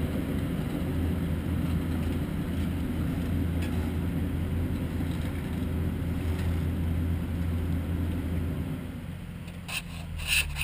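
Diesel engine of a road-train prime mover running as the truck drives slowly past hauling side-tipper trailers up a dirt bank: a steady low drone that fades after about eight and a half seconds as it pulls away. A few sharp clicks sound near the end.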